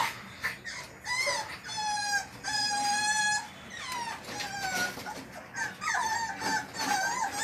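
French bulldog puppies whining: a series of high-pitched whines starting about a second in. Two long, level whines come first, then shorter, wavering ones.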